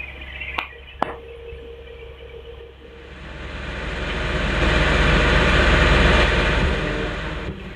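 Hitachi ZX225USR excavator's diesel engine and hydraulics working under load: a steady low hum with two sharp clicks in the first second, then the noise rises from about three seconds in, holds, and cuts off abruptly near the end.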